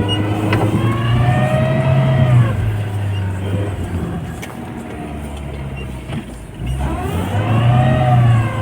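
Off-road vehicle engine revving as it pushes through snow, its pitch rising and falling. It eases off in the middle and climbs again about seven seconds in.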